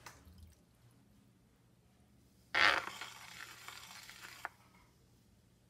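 A sudden wet, rasping squelch from hands and a sponge working the wet clay walls of a teapot being thrown on a potter's wheel. It starts loud about two and a half seconds in, fades over about two seconds, and ends with a small click.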